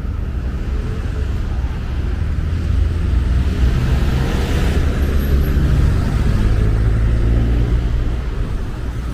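Road traffic on a city avenue: a steady low rumble with a vehicle passing close by, swelling to its loudest around the middle and fading near the end.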